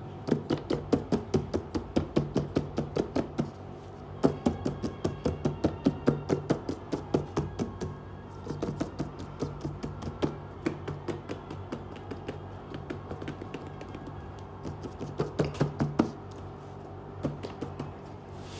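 Fingertips and nails tapping rapidly on a cardboard box lid, several taps a second, with brief pauses.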